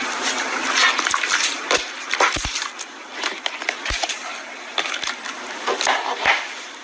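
Clear orange slime being pressed and squished by hand, giving irregular wet clicks and crackling pops over a soft hiss.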